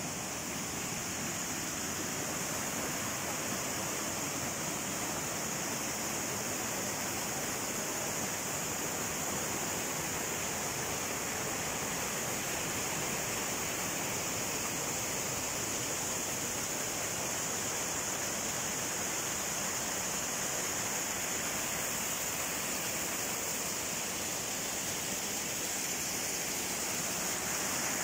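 Small waterfalls and cascades rushing over mossy rock, a continuous, even rush of falling water.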